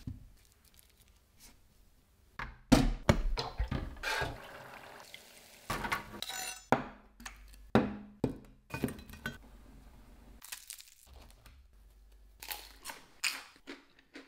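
A string of sharp clinks and knocks from metal dishes and a steel bowl being handled and set down on a wooden table, some with a short ringing tail, and quiet handling noise between them.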